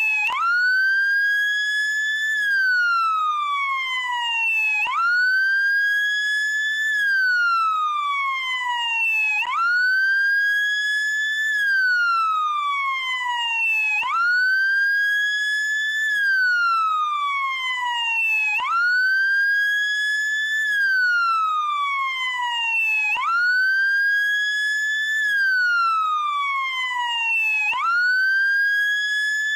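Wail siren of a Brazilian SAMU motorcycle ambulance, in an even, repeating cycle: the pitch jumps up quickly, rises a little further, then falls slowly for a couple of seconds before jumping up again, about once every four and a half seconds.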